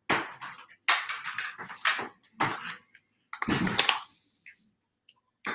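Clicks and rustling from a camera being handled close to the microphone, in a series of short bursts with a longer patch of handling noise past the middle.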